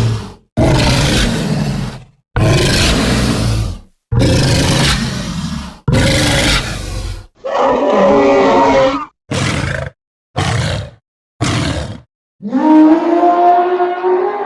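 Dinosaur creature sound effects played one after another with silence between: four harsh roars of about a second and a half each, then a longer call with a clearer pitch, three short calls, and a long pitched bellow that begins about twelve seconds in.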